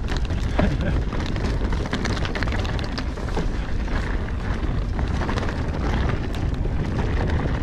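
A mountain bike rolling fast down loose, rocky singletrack: a steady wind rumble on the action camera's microphone, with the tyres crunching over loose rocks and gravel and many quick clicks and rattles from stones and the bike.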